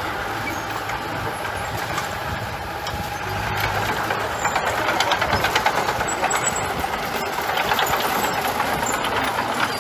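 Heavy construction machinery with its diesel engine running steadily, and rapid metallic clanking that picks up about halfway through.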